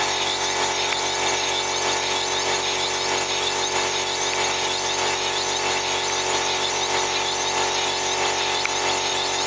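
Taylor twin-cylinder steam launch engine running steadily on compressed air, with a fast, even beat of exhausting air.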